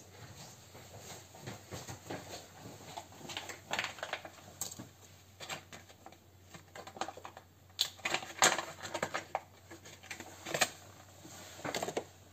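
Irregular light clicks and clatters of small metal parts being handled in an open airsoft gearbox while a dual sector gear is swapped out. The sharpest clicks come in the second half.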